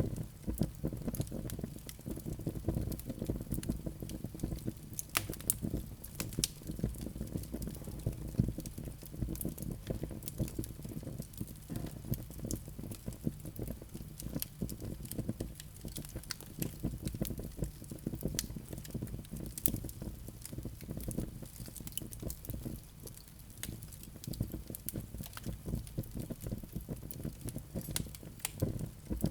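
Wood fire crackling, with frequent sharp irregular pops and snaps over a steady low rush of burning.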